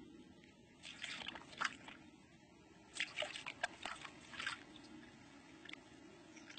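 Red fox mouthing and tugging at a rope: two bouts of faint crackling clicks and snaps, the second, about three seconds in, the busier, followed by a few scattered ticks.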